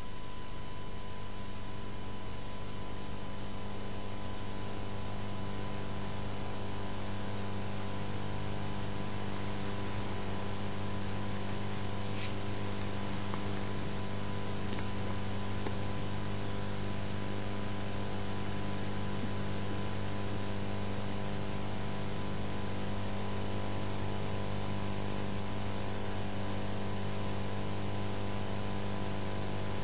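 Steady electrical mains hum under a layer of hiss, unchanging throughout, with no other sound.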